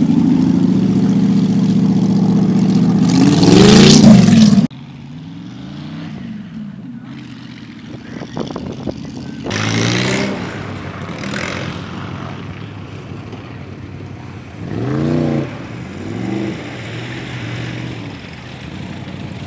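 A hot rod's open-header engine running loud and accelerating past, rising in pitch, then cutting off suddenly about five seconds in. After that, quieter hot rod engines rev in several rising surges a few seconds apart.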